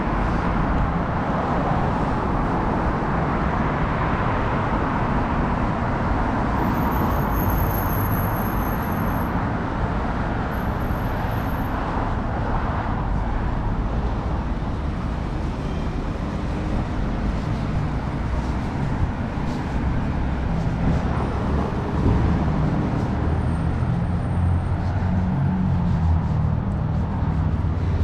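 Subway train running, a steady rumble of wheels and motors with a thin high whine twice, about a third of the way in.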